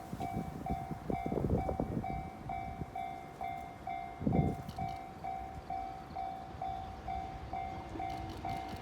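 Japanese level-crossing electronic warning bell ringing in an even pulse, about two rings a second. Wind buffets the microphone about a second in and again, loudest, around four seconds in.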